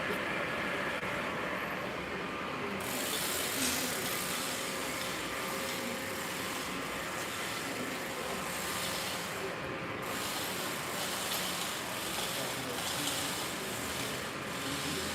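Workshop machinery running steadily with a continuous mechanical clatter, a brighter hissing noise joining about three seconds in.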